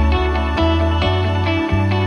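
Background music: a melody of short notes over a held bass note that changes a few times.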